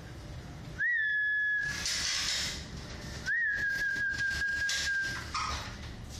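A person whistling two steady high notes to call a cat: a short one, then a longer one about two and a half seconds later. Each note opens with a quick upward flick.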